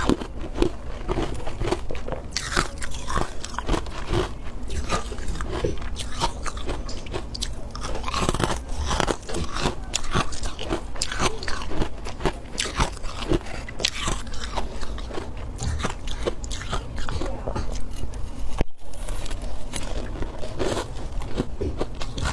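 Close-up biting and chewing of powdery freezer frost, a dense run of crisp, irregular crunches with a momentary break near the end.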